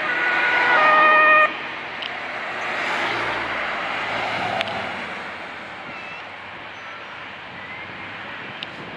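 Ambulance's two-tone siren alternating between a high and a low note, cut off abruptly about a second and a half in, then the ambulance driving past close by, its engine and tyre noise swelling and fading away.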